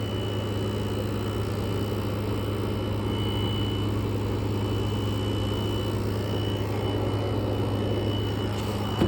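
Freshly cleaned window air conditioner running steadily: a low compressor hum under the even rush of its fan, with a faint high whine.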